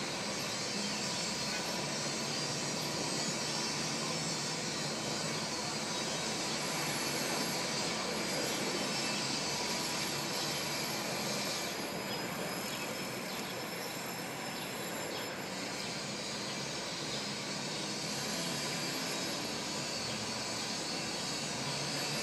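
Steady city background noise: an even hum and hiss of traffic and machinery with no distinct events.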